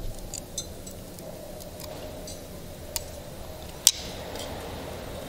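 Small metallic clicks and ticks of combination pliers gripping and bending the end of a thin stainless-steel wire, with one sharp, louder click about four seconds in.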